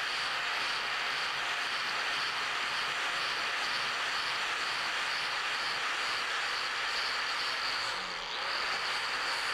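Angle grinder with a flap disc sanding a flat aluminium plate with light passes to strip the oxide layer before welding: a steady high motor whine over the hiss of the abrasive on the metal. It briefly eases near the end.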